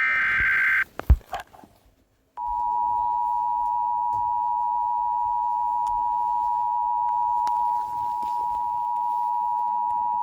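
Emergency Alert System tones: a short burst of high warbling digital data tones, the end of the SAME header, a click, then the EAS two-tone attention signal, a steady beep held for about eight seconds and cut off abruptly. This tone announces a severe thunderstorm warning.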